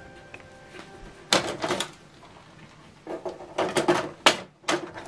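Plastic clicks and clatter of an HP Envy 6010 printer's paper tray being handled and pushed back into place. The clicks come in short clusters, one about a second in and a longer run from about three to four seconds in.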